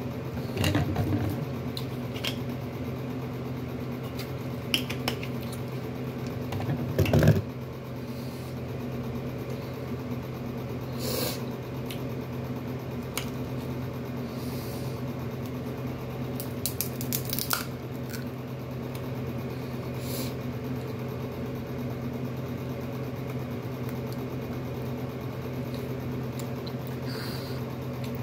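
Scattered crackles, clicks and rustles of boiled seafood shells and a plastic bag being handled and pulled apart by hand, the loudest about a second in and about seven seconds in. A steady low appliance hum runs underneath.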